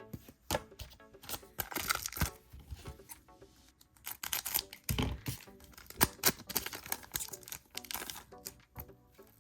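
Foil trading-card booster pack being torn open and crinkled, with cards being handled, in a run of crackling rustles. Light background music plays underneath.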